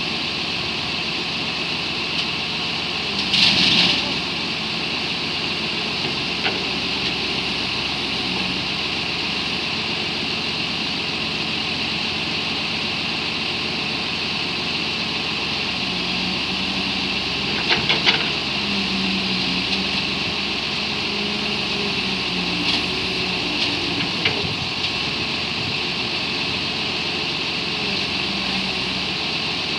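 Kobelco Yutani crawler excavator's diesel engine running steadily while its hydraulic boom works, with a short hiss about three seconds in and a few sharp metal clanks about two-thirds of the way through.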